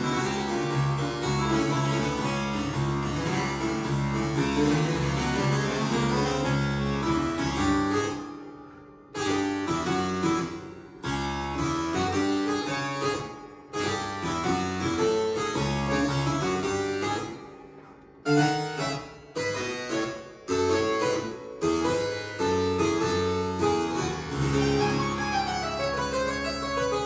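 Two-manual harpsichord played solo in a blues piece. Its plucked chords and melody break off in several brief pauses where the sound dies away, and each new phrase strikes in sharply.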